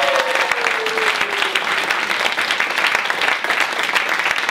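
Applause: many hands clapping densely and steadily. In the first second and a half a held tone slides down in pitch beneath the clapping.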